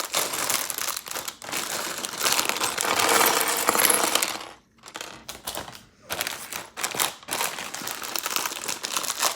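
Plastic bags of LEGO pieces crinkling as they are handled, with the small plastic pieces inside clicking and rattling. The handling pauses briefly about halfway through.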